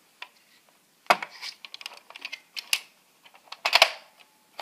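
Nerf Strongarm dart blaster being handled: a run of sharp plastic clicks and clacks, with a loud knock about a second in and a louder cluster of clacks near the end.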